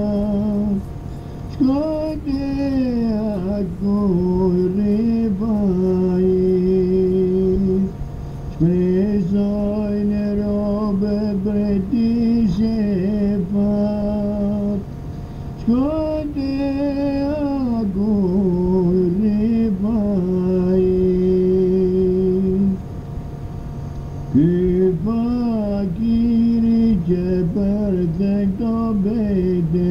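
A single voice singing an ilahi, an Islamic devotional hymn, in long ornamented phrases with long held notes and short breaks between phrases. A steady low hum runs beneath it.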